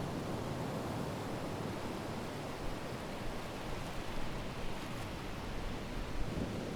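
Ocean waves washing ashore: a steady rushing wash, easing a little mid-way and swelling again near the end.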